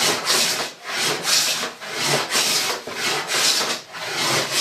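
Wooden hand plane pushed along a board, shaving wood in about six quick, rhythmic strokes, each a short rasping hiss.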